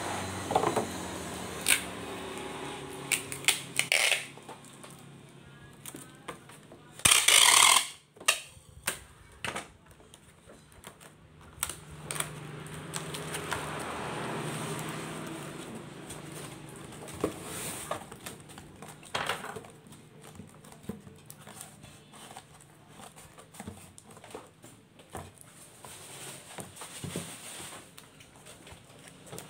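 Packing a cardboard box by hand: packing tape is pulled off a tape gun dispenser with a loud tearing screech about seven seconds in, with shorter pulls before it. Around it, cardboard is knocked, slid and rustled on the wooden bench.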